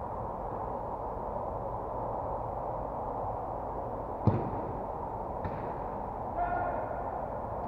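Steady background noise, with one sharp thud about four seconds in, a fainter knock a second later, and a brief pitched call near the end.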